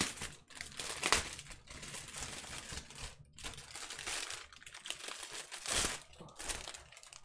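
Small plastic bags of diamond-painting drills crinkling and rustling as they are handled, in irregular bursts with a short pause about three seconds in.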